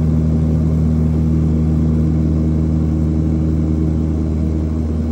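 Turboprop aircraft's engine and propeller droning steadily, heard from inside the passenger cabin: a loud, even hum made of several low steady tones over a rushing noise.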